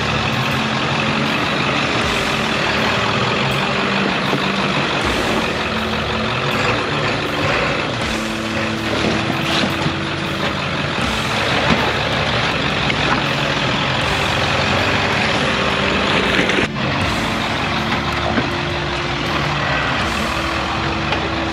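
Truck engine running on an off-road trail, its pitch stepping up and down.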